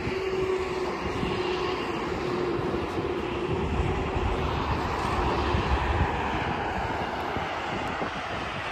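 Steady road and wind noise of a car driving at speed, with a low rumble.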